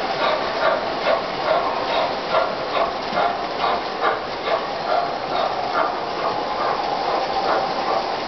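O-gauge model freight train rolling on three-rail track: a steady rolling hum with regular clacks about two to three times a second as the wheels run over the rail joints.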